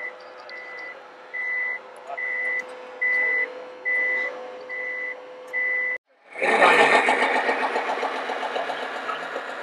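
An RC truck's reversing beeper, the sound-module back-up alarm of a radio-controlled Mercedes Actros tipper, sounds about eight evenly spaced high beeps, roughly one a second. About six seconds in the sound cuts to a louder, rough, steady noise that slowly fades.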